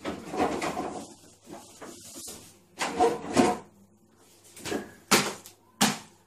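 Kitchen clatter from breakfast being made: scattered knocks and rubbing of wooden and household items, ending in two sharp clicks.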